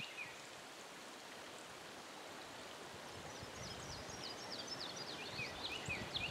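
Creek water running steadily, with a small bird singing a quick series of short falling chirps from about halfway through.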